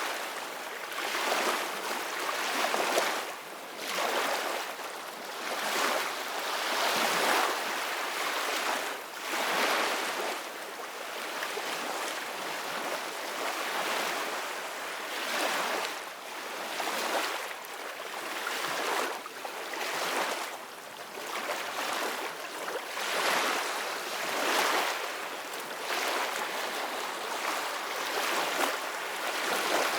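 Open-sea waves washing and breaking, with wind. It is a continuous hiss of water that swells and falls back every second or two.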